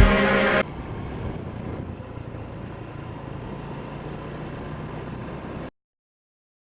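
Low steady rumble of outdoor background noise, after a brief tail of music at the start. It cuts off abruptly to silence near the end.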